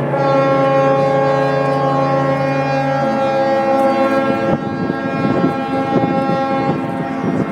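Several ships' horns blowing together at different pitches, making one long, steady chord. The lowest horn stops about three seconds in and another a second and a half later, while the rest keep sounding.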